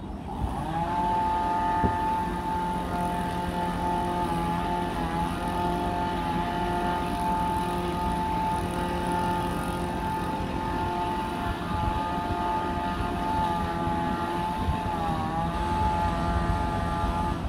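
An engine revs up about half a second in and runs at a steady high speed, dipping briefly in pitch twice.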